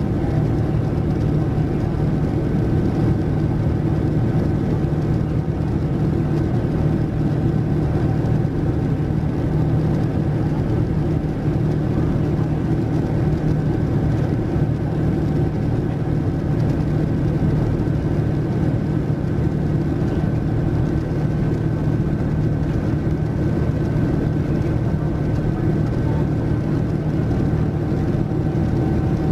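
Boeing 787-9's Rolls-Royce Trent 1000 turbofan and rushing airflow heard inside the cabin at a window seat during the climb: a loud, unchanging low noise with two faint steady whining tones over it.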